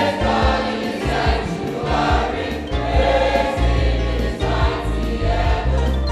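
Choir singing a gospel praise song in sustained, held notes over a steady instrumental bass accompaniment.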